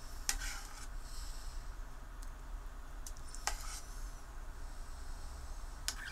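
A metal ladle clinking against a stainless-steel soup pot while stirring, five or so light clinks with the loudest about three and a half seconds in, over a faint steady background.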